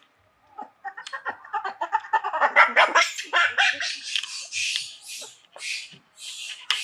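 Long-tailed macaques calling: a run of rapid, pulsed squeals rising in pitch for about two seconds, then a series of harsh shrieks, about two a second.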